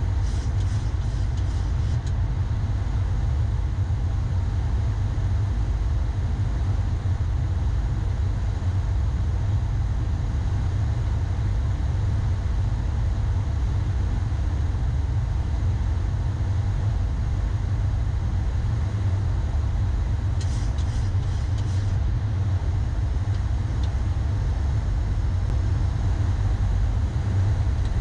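Steady low rumble of air and engine noise inside a Boeing 737-800 flight deck during the descent on approach.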